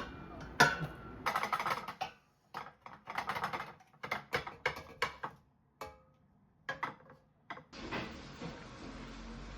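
Kitchen handling sounds: clusters of quick light clicks and rattles, as of utensils and dishes, for most of the stretch, then a steady hiss that starts suddenly near the end.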